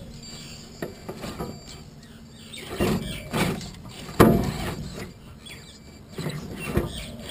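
Small electric motor and gearbox of a 1/14-scale RC crawler truck whirring in short bursts, rising and falling, as its rubber tyres scrape and bump over a plastic surface, with a sharp knock about four seconds in.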